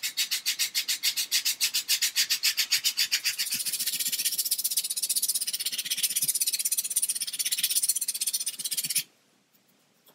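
Finer-grit sanding stick rubbed quickly back and forth along the edge of a wooden model ship's false keel, about seven strokes a second, fairing in the bevel for the planking. The rasping stops abruptly about nine seconds in.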